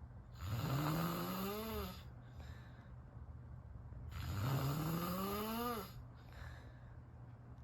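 A person snoring: two long snores about four seconds apart, each a pitched rasp that rises in pitch as it is drawn in. A steady low hum runs beneath.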